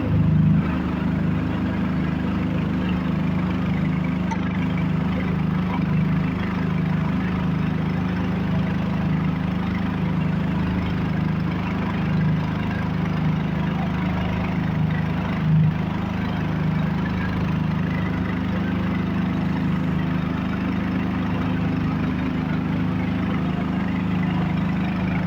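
A 3-in-1 compressor running steadily, a low, even pulsing note that holds at a constant level.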